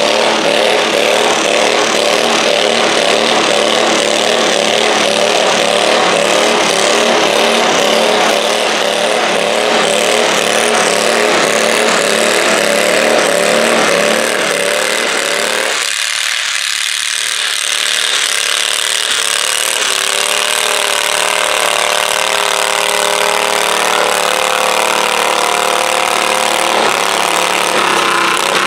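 Stock altered garden tractor engine running hard at full throttle, dragging a weight-transfer sled in a pull. About halfway through its low, throbbing note drops away suddenly, then the engine note slowly climbs again.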